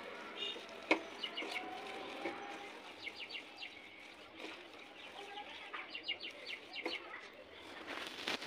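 Hand tossing and squeezing shredded raw cabbage with spices in a metal pan: crisp rustling and crunching in short clusters.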